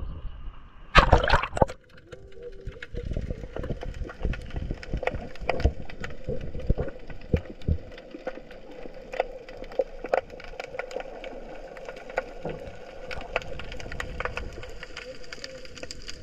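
Underwater sound picked up by a GoPro: water noise with a steady low hum and many scattered sharp clicks. A loud rushing burst comes about a second in.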